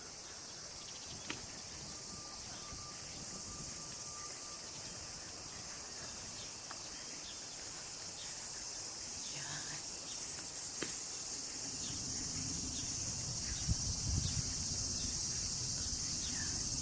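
A steady, high-pitched chorus of insects shrilling, growing slightly louder, with a low rumble joining in over the last few seconds.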